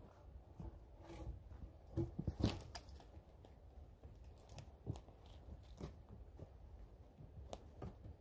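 Scattered knocks, scrapes and crunches of wooden logs being handled and fitted into a stacked log wall, with the loudest knocks about two seconds in.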